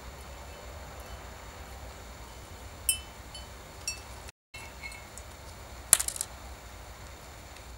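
Light clinks of a metal lighter body and its wire hangers knocking against a glass jar, each with a short bright ring. There are single clinks about three and four seconds in, two smaller ones a little later, and a louder rattle of several clinks about six seconds in, over a steady low hum.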